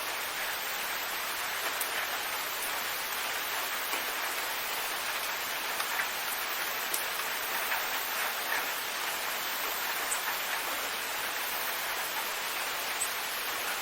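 Steady, calm rain falling, an even hiss with scattered small drips and patters and no thunder.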